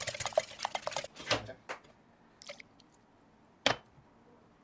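Kitchen utensils and bowl handled during batter preparation: a quick run of light clicks and taps in the first second, a soft scrape, then a few scattered ticks and one sharp knock about three and a half seconds in.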